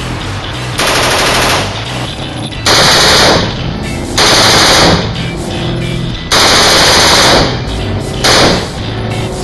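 Full-auto bursts from a Bushmaster select-fire 5.56 mm carbine with an 11.5-inch barrel and a compensator on the muzzle. There are five short bursts, the longest at about a second, and the last is the briefest.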